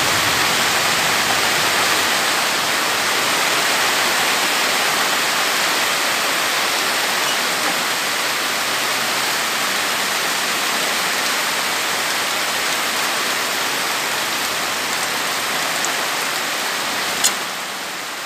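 Steady rain falling, with water streaming off the edge of a tarp overhead. A single sharp click sounds near the end.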